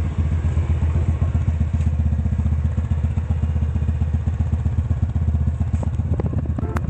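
TVS Ntorq scooter's single-cylinder engine idling steadily, being warmed up before the oil is drained. It cuts off abruptly near the end.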